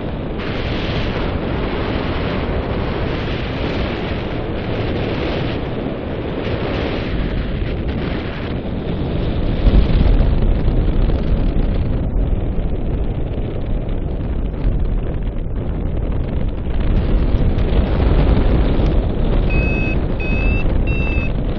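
Airflow buffeting the camera microphone of a paraglider pilot in flight, a steady rush that gets louder about halfway through as speed builds. Near the end, a few short high beeps from the flight variometer.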